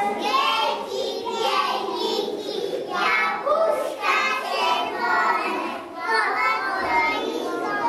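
A group of three-year-old children reciting a poem together in Polish, in unison, in short chanted phrases about a second long.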